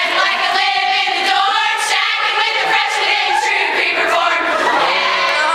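A group of young women singing together as a choir, voices held on long notes.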